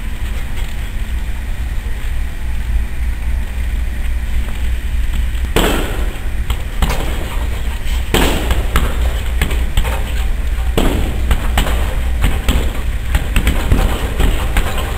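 Gloved punches landing on a heavy punching bag. No blows for the first five seconds or so, then a run of sharp thuds in quick combinations, some several in rapid succession, over a steady low rumble.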